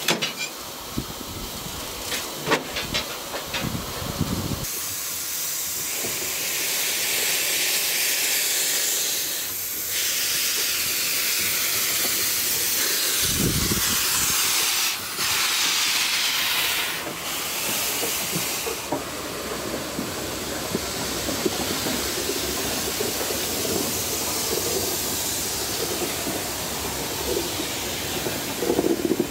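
Steam hissing from a South African Railways Class GMAM Garratt articulated steam locomotive, loud and even, easing somewhat after about 19 seconds. A few sharp clicks and knocks in the first few seconds.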